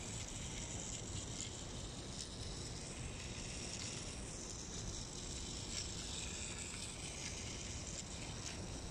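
Battery-powered Plarail toy train running around its plastic track: a steady hiss with a few faint, irregular clicks, over a low outdoor rumble.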